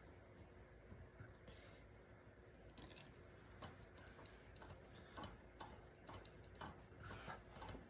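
Faint, scattered clicks and light knocks of electrical wires and small metal parts being handled, bunched in the second half, over a low steady hum.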